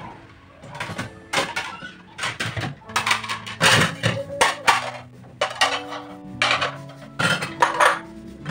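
Plates and bowls clattering and clinking as they are lifted out of a dish rack and stacked one on another, a rapid string of knocks. Soft background music runs underneath.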